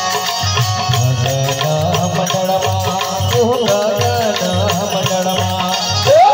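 Live Gujarati devotional bhajan music: an instrumental passage with an electronic keyboard melody bending and gliding in ornaments over harmonium and a steady low beat. A quick upward swoop in the melody comes near the end.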